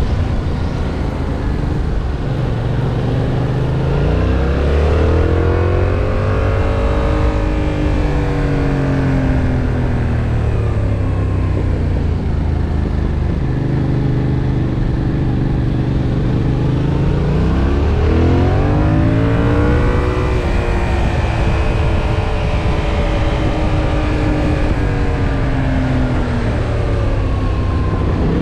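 2021 Yamaha MT-07's 689 cc parallel-twin engine pulling hard as it is ridden around a track, its revs rising and falling several times as the rider accelerates and rolls off.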